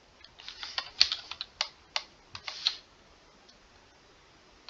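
Typing on a computer keyboard: a quick, uneven run of keystrokes that stops about three seconds in.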